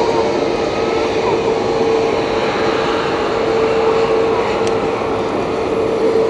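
Airliner jet engines running at taxi idle: a steady rushing noise with a constant droning tone.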